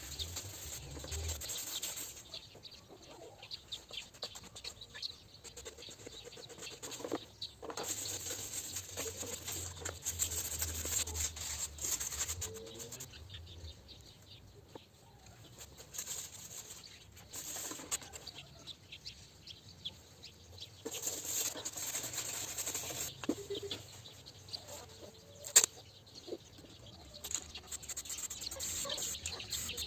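Intermittent rustling and scraping handling noises that come and go in patches, with one sharp click about 25 seconds in.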